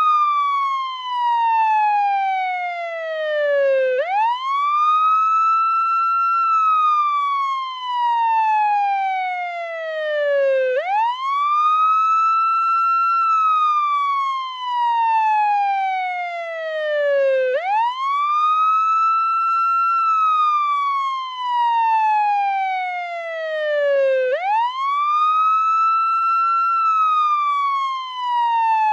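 Portuguese ambulance wail siren: a loud tone that sweeps up quickly, holds briefly, then falls slowly, the cycle repeating about every seven seconds.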